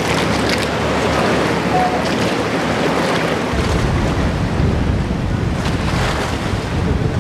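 A boat under way: a steady rush of water and wind buffeting the microphone, with a low rumble that grows heavier about halfway through.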